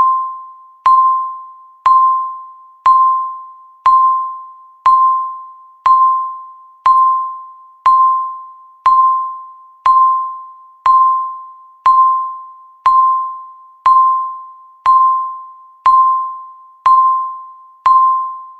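Countdown timer beeping once a second, each beep marking one second left: a short, mid-pitched electronic tone that starts sharply and fades away, about nineteen in a row.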